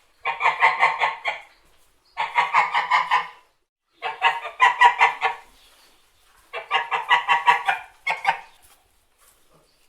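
White domestic geese honking: five bursts of quick repeated honks, about five a second, with short pauses between them.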